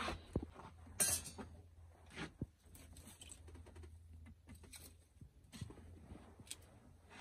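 Dry twigs and sticks being handled and laid into a hearth: scattered light knocks, cracks and rustles of wood, one louder crack about a second in.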